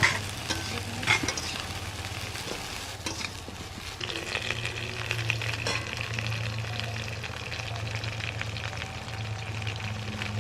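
Food sizzling as it fries in oil in a pan while it is stirred, with a couple of sharp clicks of a utensil against the pan near the start. The sizzling gets louder about four seconds in.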